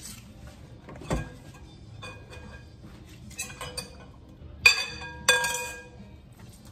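Things knocking in a stainless steel kitchen sink while fish is washed: a dull thump about a second in, a few light clinks, then two loud ringing metallic clinks about half a second apart.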